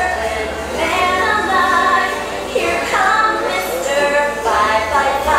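Dance music playing with a sung vocal line, in phrases of held notes.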